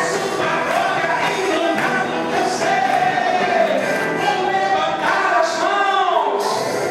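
Portuguese-language gospel worship music: sung vocals with a choir over a full band, the melody line gliding and sliding between held notes.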